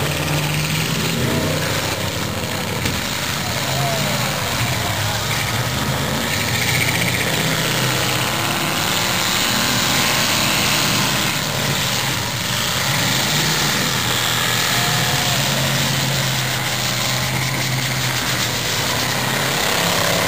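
Many demolition derby cars' engines running and revving together in a loud, steady din, the low engine note shifting up and down as the cars push and manoeuvre.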